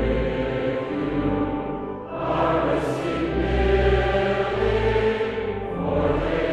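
Choral music: a choir singing sustained chords over a steady low bass accompaniment, with short breaks between phrases about two seconds in and again near the end.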